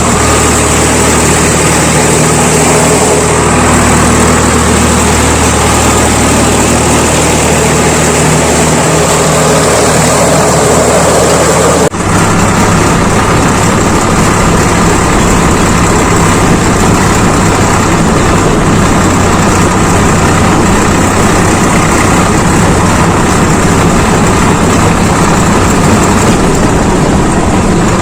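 Diesel tractor engine running steadily. About twelve seconds in the sound cuts for an instant and resumes with a slightly different, rougher tone.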